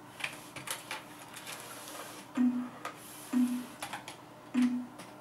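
Irregular clicking and tapping of computer keyboard keys as a red squirrel moves about on the keyboard. Three short low hums about a second apart, in the second half, are louder than the clicks.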